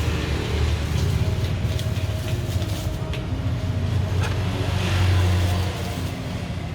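Road traffic: a low engine rumble from passing motor vehicles, swelling briefly about five seconds in.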